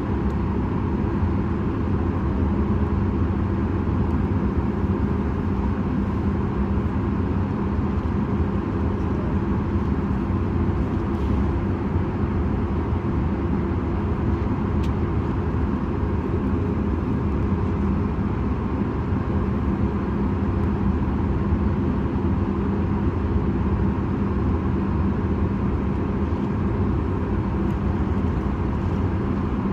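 Boeing 737 MAX 8's CFM LEAP-1B turbofan engines idling, a steady hum with a low drone, heard inside the passenger cabin while the aircraft holds before its takeoff roll.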